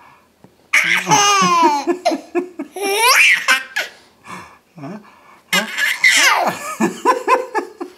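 A small child laughing hard in two bouts, each a string of quick, high-pitched laughs. The first bout ends in a rising squeal about three seconds in.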